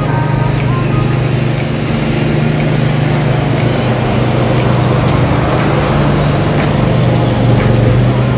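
A small engine running steadily at a constant speed, with a few faint short chirps over it.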